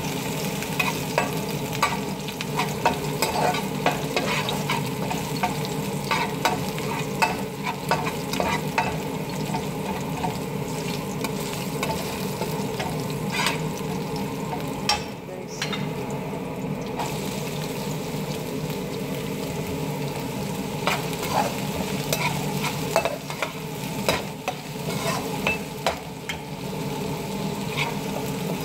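Minced garlic sizzling in hot oil in a pan, stirred with a perforated metal spatula that scrapes and taps against the pan over and over.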